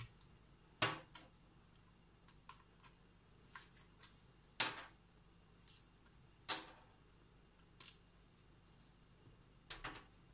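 Hard-boiled egg being peeled by hand: shell cracking and coming away in short, irregular crackles and clicks, with a few sharper cracks spread through.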